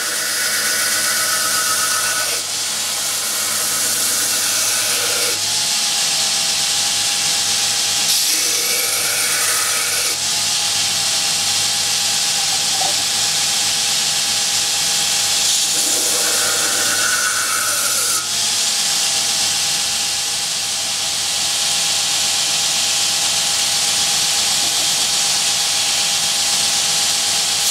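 Belt grinder running with a hardened XC75 carbon-steel knife blade held against the abrasive belt, a loud steady grinding hiss as the bevels are thinned down after tempering. The pitch of the grinding shifts every few seconds as the blade is moved across the belt.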